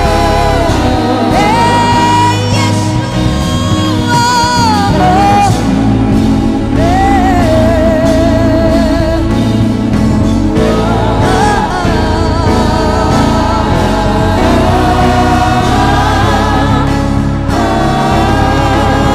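Gospel worship music: singing with vibrato over a band with steady bass.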